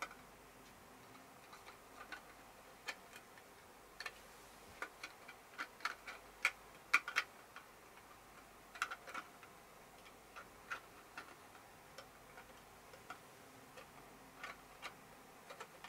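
Irregular small sharp clicks and ticks of hands working at the rear bayonet mount of a Tamron SP 150-600mm G2 telephoto lens, with its cap off and a TAP-in Console being fitted. The clicks are scattered and faint, with the loudest few about six to seven seconds in.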